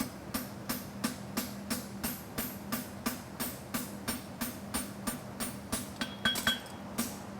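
Hammer striking a hot steel horseshoe on the anvil in a quick, even rhythm of about three to four blows a second, each with a short metallic ring, shaping a triangle of material for a masselotte toe clip.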